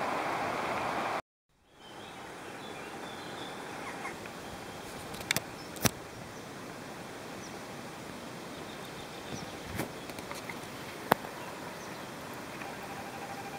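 River water swishing and lapping around a paddled inflatable canoe. The steady rush cuts out briefly about a second in and comes back quieter. A few sharp knocks and faint high bird chirps are heard over it.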